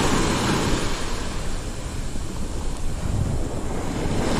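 Small surf breaking and washing up the sand at the water's edge, with wind buffeting the microphone.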